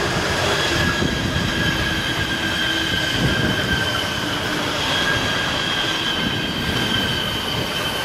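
BLS Stadler KISS double-deck electric multiple units, several coupled together, passing close by: a steady rumble of wheels on rails with a high, even whine throughout.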